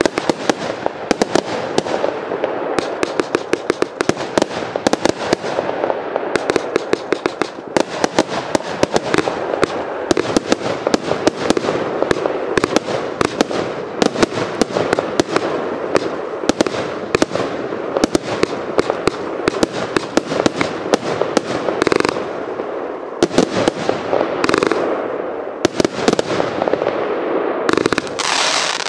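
Evolution Fireworks Britannia 108-shot compound firework cake (25 mm and 30 mm tubes) firing, with sharp shots and star bursts coming several a second over a continuous hiss. The barrage keeps up without a break and grows denser near the end.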